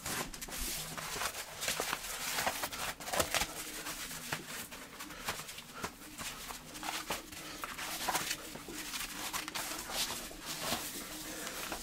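A neoprene wetsuit rustling and rubbing as it is pulled on and adjusted, with many scattered soft clicks and slaps.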